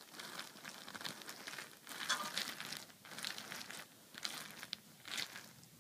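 Small plastic Moshi Monsters toy figures clicking and rattling against each other as hands sweep and scoop through a heap of them on a blanket, with irregular soft rustling.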